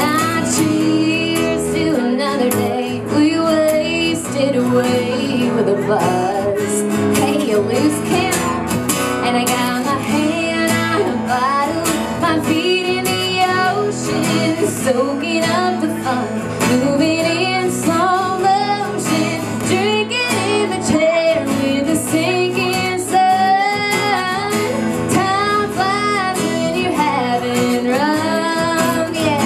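A woman singing a country song live, accompanying herself by strumming an acoustic guitar.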